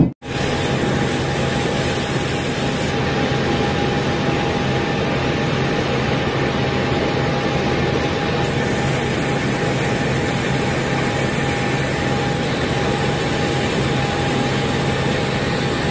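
Steady, loud jet aircraft noise on an airport apron: an even rush with a constant whine over it.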